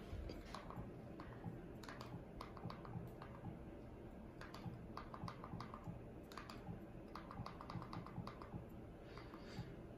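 Quiet runs of rapid clicks as buttons on the Xiaomi projector's remote are pressed to move through its menu, over a low steady hum.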